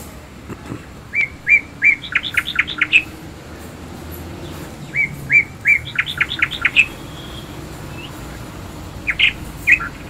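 A songbird singing. Each phrase is three evenly spaced notes followed by a quick run of higher notes, given twice, with a shorter snatch of song near the end.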